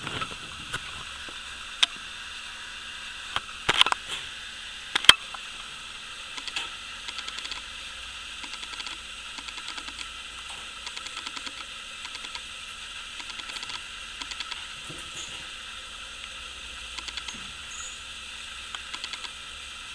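Steady hiss with a few sharp clicks and taps in the first five seconds, the loudest about five seconds in, then runs of faint rapid ticking.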